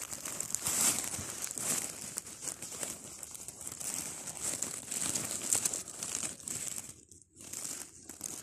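Dry fallen leaves and grass rustling and crackling as someone moves through the leaf litter, with a short pause about seven seconds in.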